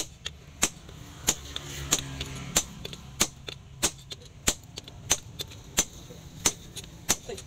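Hand hammer striking red-hot leaf-spring steel on a cylindrical steel anvil post while forging a sword blade. About a dozen sharp, evenly spaced blows, roughly three every two seconds.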